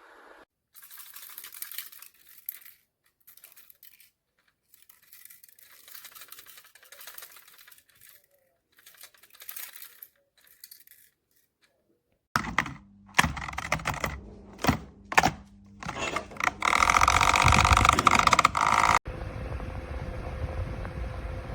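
Rustling and handling noises with short gaps, then a loud stretch of clicks and clatter. After that a small electric desk fan runs with a steady hum.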